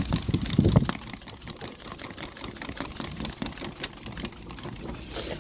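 Dense, irregular crackling and clicking as a small fire that has just gone out is relit, with a heavy low rumble of handling in the first second.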